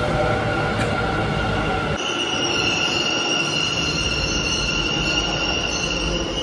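Bengaluru Namma Metro train running along the platform and pulling in, a steady high-pitched whine over the rumble of the train. The whine grows stronger about two seconds in.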